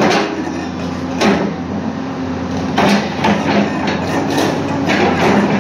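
Hyundai crawler excavator's diesel engine running steadily while its steel bucket digs into broken concrete and brick rubble, with several sharp knocks and clatters at irregular intervals as the bucket strikes the debris.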